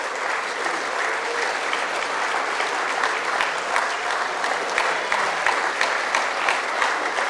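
Audience applauding: the steady clapping of many hands.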